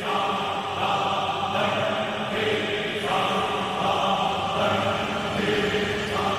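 Devotional background music of chanting voices, with long held notes that change pitch every second or two.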